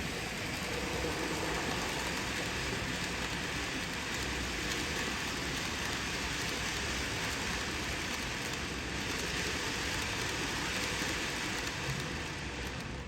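N-gauge model freight trains running on the layout track: a steady rolling hiss of small wheels and motors, easing slightly near the end.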